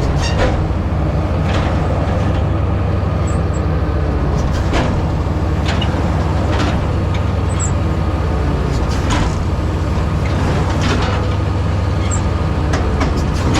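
Large diesel engine of cotton-harvest machinery running steadily at constant speed, with short sharp clicks or clacks every one to two seconds.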